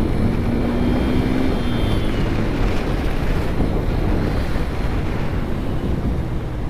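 Yamaha FZ V2's single-cylinder engine running at a steady cruise, under heavy wind rush on the action camera's microphone.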